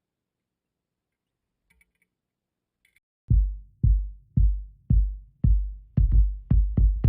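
Background music opening: after about three seconds of near silence with a couple of faint clicks, a deep electronic bass drum starts hitting about twice a second, each hit booming and dying away, the beats coming closer together near the end.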